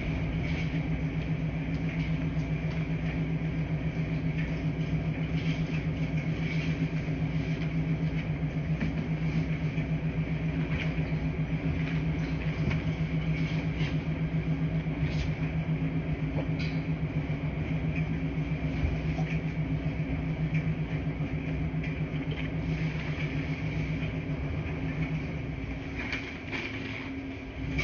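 Steady low hum of a washing machine running in a laundry room, with faint scattered ticks over the drone. The hum dips slightly near the end.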